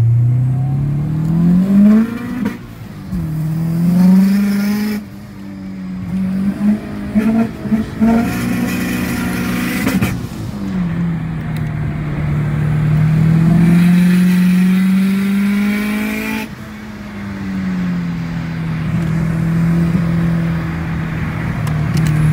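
Subaru Impreza's flat-four engine heard from inside the cabin, driven hard uphill: the engine note climbs, drops back and climbs again several times as it goes up through the gears, with a choppy stretch of throttle on and off near the middle and a steadier pitch near the end.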